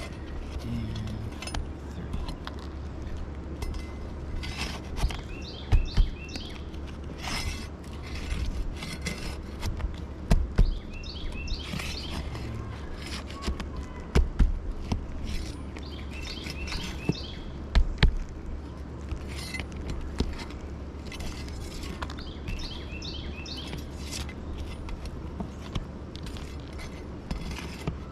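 Scattered knocks and scrapes from hands and tools working asphalt shingles on a roof, the loudest a few sharp knocks spread through. Birds chirp in short bursts over a steady low rumble.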